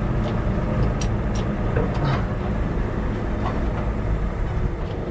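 Steady low mechanical hum of an engine running, like a heavy vehicle idling, with a few light clicks on top.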